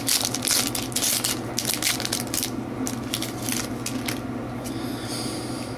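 Foil wrapper of a hockey card pack being torn open and crinkled: a quick run of crackles over the first two and a half seconds, then a shorter rustle about five seconds in.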